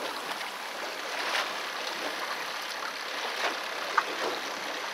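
Steady rush of choppy sea water around a small boat, with a few brief louder swishes and one short sharp click about four seconds in.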